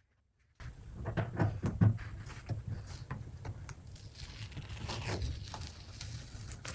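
Plastic spreader scraping body filler across a car body panel in a series of irregular strokes, starting abruptly about half a second in.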